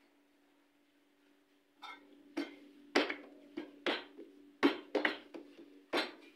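Paratha dough being slapped and pressed flat by hand on a stainless steel worktable, giving a string of sharp slaps and knocks with a short metallic ring. It is quiet for about the first two seconds, then comes about eight hits roughly half a second apart.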